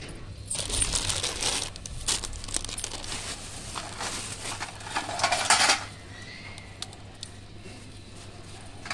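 Rustling and crinkling as puja items are handled and set down, with light clinks of steel dishes, for about the first six seconds; then it quietens.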